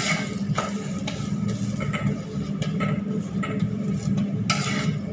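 Rolling pin working paratha dough on a board, with short knocks and clatters as it moves and taps, the loudest near the end, over a steady low hum.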